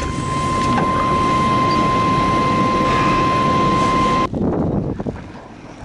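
Steady noise inside a vehicle cabin: a running engine and a loud, even rushing sound with a thin, high steady whine over it, all cutting off suddenly about four seconds in.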